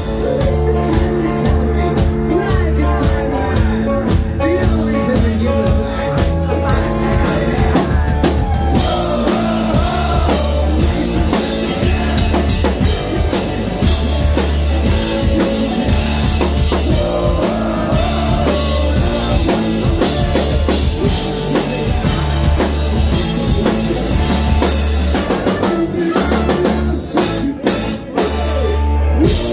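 Ska-punk band playing live without vocals: drum kit, bass and electric guitars, with trumpet and trombone. The playing stops briefly a few times near the end.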